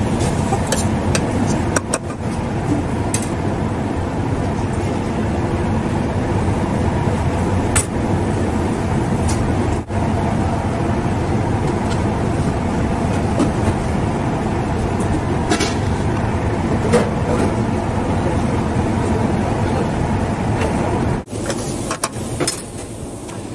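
Steady low roar of large gas burners under the cooking pots, with a metal spoon scraping and clicking against a steel pot as rice is stirred.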